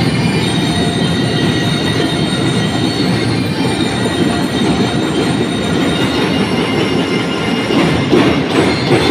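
Drum and lyre corps playing: dense drumming with bell lyres ringing in high, steady tones.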